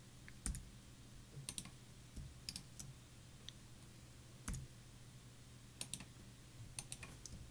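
Faint, scattered clicks from a computer keyboard and mouse, a dozen or so over several seconds and often in quick pairs, over a low steady hum.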